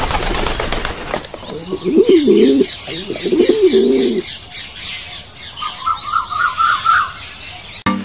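A flutter of pigeon wings, then a pigeon cooing twice in low rolling phrases, with small birds chirping high above and a short trill near the end.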